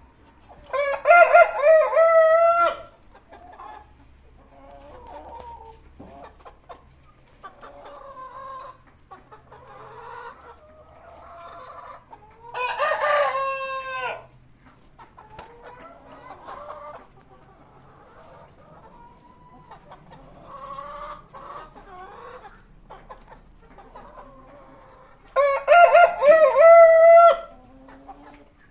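A rooster crowing three times, each crow about two seconds long and the middle one softer, with hens clucking quietly in between.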